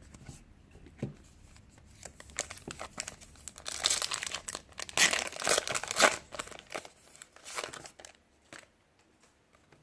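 A trading-card pack's foil wrapper being torn open and crinkled by hand, in irregular rustling bursts that are loudest in the middle and die away near the end.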